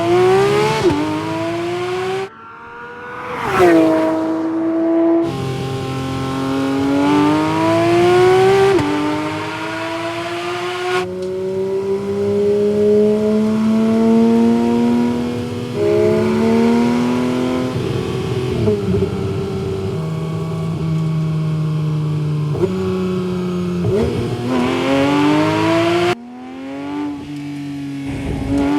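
Porsche 911 GT3 RS's 4.0-litre naturally aspirated flat-six revving hard and pulling through the gears, its pitch climbing and then dropping at each PDK upshift. About two seconds in and again near the end, the sound falls away sharply and then rises again quickly.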